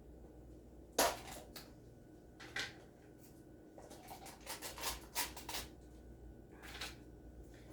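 A kitchen utensil scraping thick sour cream out of its container into a mixing bowl: a sharp scrape about a second in, then a run of short scrapes and taps.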